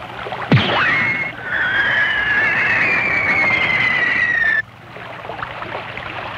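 Cartoon sound effects over rushing stream water. About half a second in, a sharp shot with a fast downward-sweeping zap as the energy capsule is fired from a toy-like gun. Then a long whistling tone glides slowly down in pitch while the capsule rides the water, and cuts off abruptly about four and a half seconds in.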